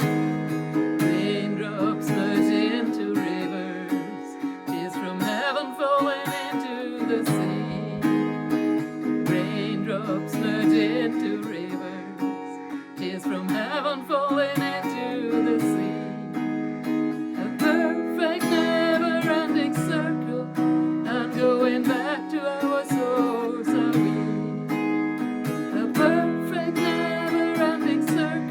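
Music: acoustic guitar strumming chords throughout, with a wavering melody line rising above it every few seconds.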